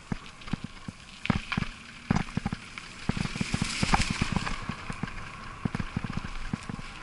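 Bicycle riding over a leaf-covered dirt forest trail: tyres crunching on leaves and grit, with irregular rattles and knocks from the bike as it jolts over bumps. The rattling is thickest about two to four seconds in.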